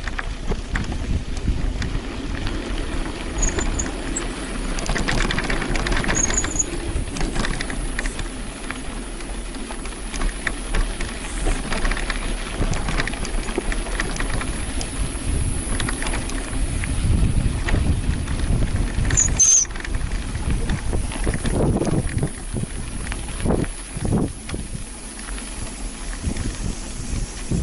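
Bicycle ridden over a rough, loose dirt track: steady rolling and rattling noise with a low rumble, and a few brief high squeaks.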